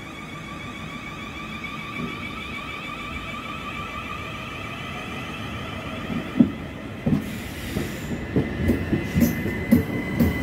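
Southern Class 377 electric multiple unit running into the platform with a steady electric whine. From about six seconds in, its wheels thud over the rail joints more and more often as it draws close and passes.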